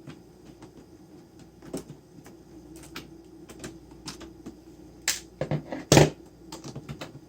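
Scattered clicks and knocks of hardware and hand tools being handled while a bolt is swapped and fitted, with a cluster of louder knocks a little after five seconds and the loudest knock about six seconds in.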